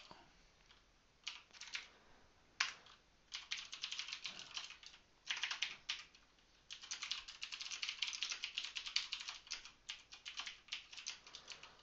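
Typing on a computer keyboard: quick runs of keystrokes with short pauses between them, the longest unbroken run in the second half.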